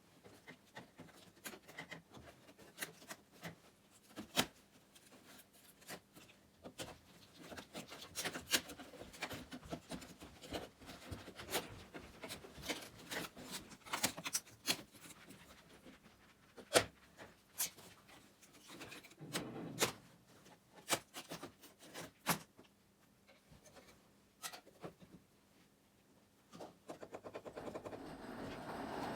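Irregular taps, knocks and scrapes of hand work on the old wooden cabin roof as it is cleared, with softer rubbing between the louder knocks. A steady rushing noise grows in near the end.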